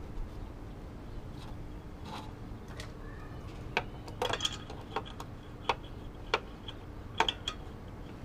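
Metal lug nuts clicking and clinking against the wheel studs as they are threaded on by hand: a run of about ten sharp ticks in the second half, over a faint steady hum.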